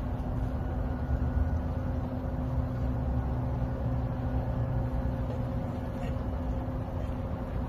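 Steady low mechanical hum over a rumble, holding a few unchanging tones.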